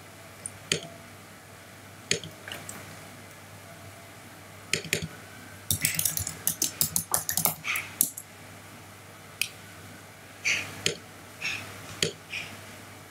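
Computer keyboard typing and mouse clicks. A few single clicks come first, then a quick run of keystrokes about six seconds in, and a few more clicks near the end.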